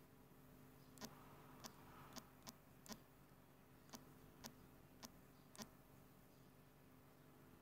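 Faint, sharp clicks, about nine at an uneven pace, one for each key press as a short text is typed on an on-screen keyboard, over a faint steady hum.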